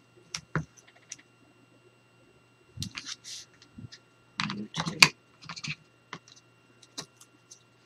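Scattered clicks, taps and short rustles of hands picking at and peeling a roll of double-sided adhesive tape and its liner over paper on a cutting mat.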